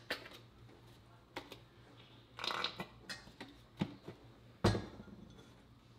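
Kitchenware being handled on a counter: a few light taps and clinks, a short rustling scrape about two and a half seconds in, and one louder knock near the end.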